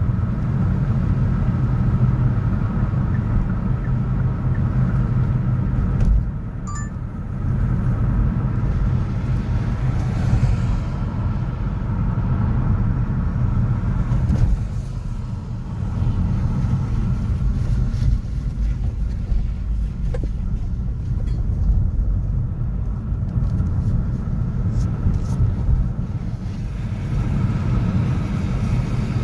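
City street traffic: a steady low rumble of passing cars and engines, with a short lull about six seconds in.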